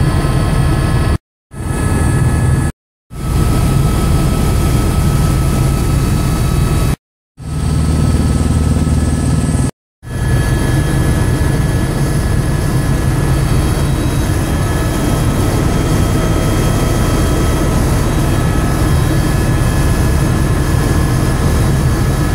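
Steady drone of a helicopter's engine and rotors heard from inside the cabin, with thin steady whining tones over it. The sound drops out briefly four times in the first ten seconds and fades straight back in each time.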